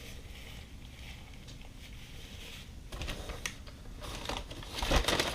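Close-up handling noises while eating: clicking and crinkling of food packaging. It starts faint and grows busier and louder from about three seconds in, as a run of sharp clicks and crackles.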